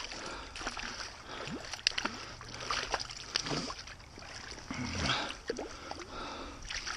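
A hooked brown trout splashing irregularly at the surface of a shallow stream as it is played in close, with water sloshing.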